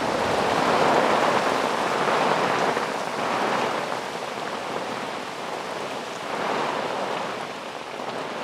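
Heavy rain with small hail coming down hard on bare ground and grass: a steady, even patter of drops, a little heavier in the first few seconds.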